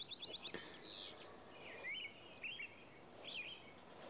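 Birds chirping: a quick run of about five short falling notes at the start, then single chirps roughly once a second, over faint background hiss.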